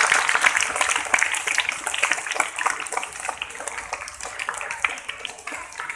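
A small group of people clapping, loudest at the start and thinning out toward the end.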